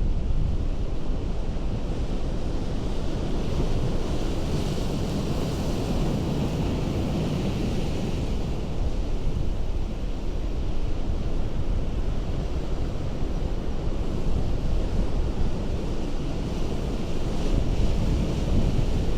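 Ocean surf breaking on a rocky shore: a continuous rush of water with hissing washes that swell about four seconds in and again near the end. Wind rumbles on the microphone.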